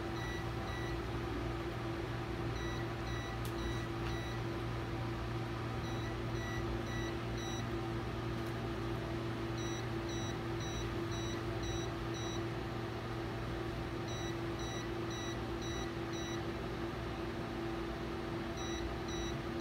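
Endovenous laser console beeping in runs of four or five short, high beeps, a run every three to four seconds, over a steady low hum. This is the emission tone of a medical laser as it fires continuously during vein ablation.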